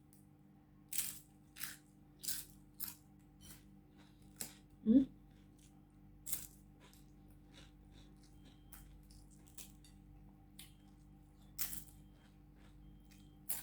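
Crisp rugag flatbread being bitten and chewed: sharp, irregular crunches, several in the first three seconds and a few more later. About five seconds in comes a brief rising tone, the loudest sound.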